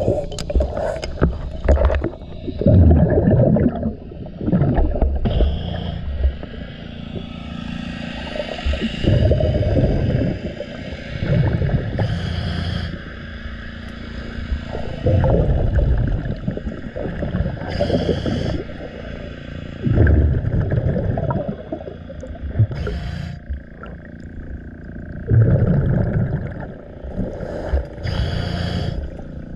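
Scuba diver breathing through a regulator underwater: a short hiss on each inhale and a rumble of exhaled bubbles, one breath about every five seconds. Between breaths, a scrub pad rubs on the boat's hull.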